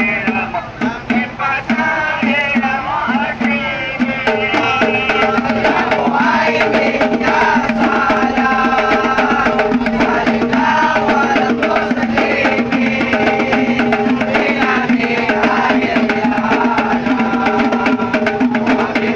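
Lively music with a fast, dense percussion beat under a sustained melody. It becomes fuller and louder about four seconds in.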